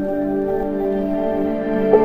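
Background music: soft, ambient new-age music with sustained tones.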